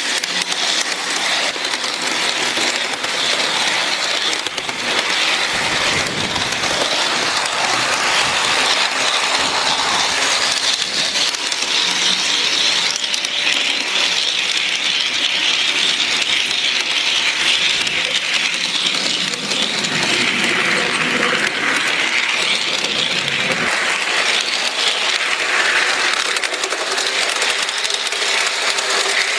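G gauge model locomotive running along its track, heard from a camera riding on the train: a steady mechanical rattle of wheels and running gear.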